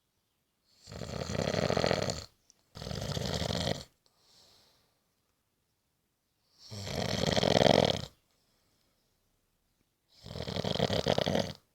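A person snoring: four snores of about a second each, the first two nearly back to back, then two more a few seconds apart.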